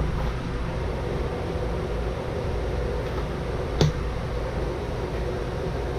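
Steady mechanical hum with a hiss of moving air, with one sharp click a little under four seconds in.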